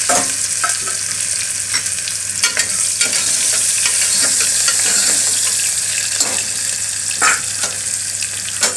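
Chopped onions sizzling in hot sesame oil in an aluminium pressure cooker, a steady high hiss, with scattered clinks and scrapes as a spoon stirs them against the pot.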